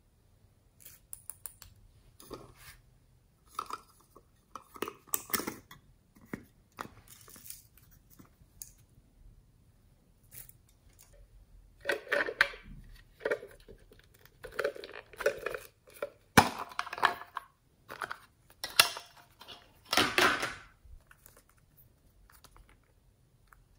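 Small plastic novelty containers being handled by hand: scattered sharp clicks and taps of plastic, with louder short scraping and rubbing sounds in the second half.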